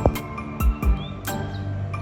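Background music with a steady beat of drum hits under sustained chords.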